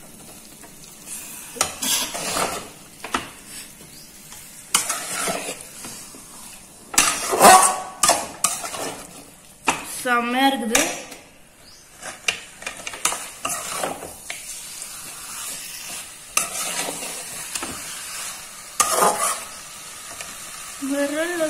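Spatula stirring and scraping chicken pieces through sizzling masala in a cooking pan, in irregular strokes.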